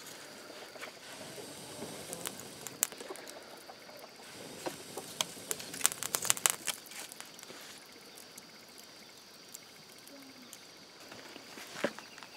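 Open wood fire crackling under meat roasting on a grate: scattered sharp pops and snaps over a faint hiss. They come thickest around the middle, with another pop near the end.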